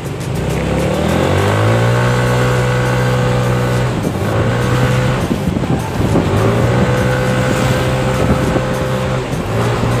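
Yamaha NMAX scooter's single-cylinder engine accelerating under throttle. The revs climb in pitch and then hold steady, let off about four seconds in, then climb and hold again, with another brief let-off near the end. It runs freshly fitted 9-gram rollers and a ram air intake, and its pull is noticeably stronger.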